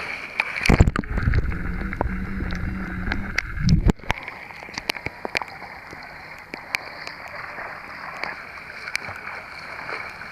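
Water splashing and lapping right at a camera held at the sea's surface, with a loud muffled rumble from about half a second in that cuts off suddenly around four seconds. Then come scattered small splashes and drips as a swimmer swims front crawl toward it.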